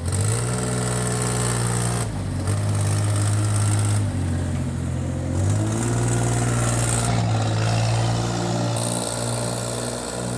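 Comet BL20/K4412 backhoe loader's engine running, its speed stepping up and dropping back several times. A high hiss comes and goes over it.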